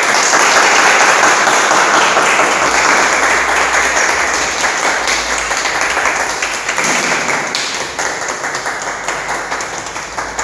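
A small group of people clapping and applauding. The applause starts abruptly and slowly tapers off toward the end.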